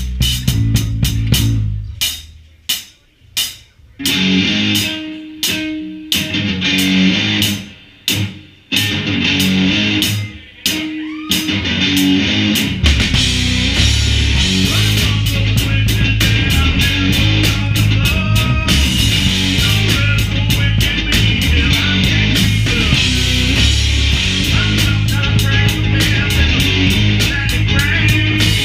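Live rock band playing: drum kit and guitar. For the first dozen seconds the band hits together in stop-start breaks with short silences between, then it plays on without a break.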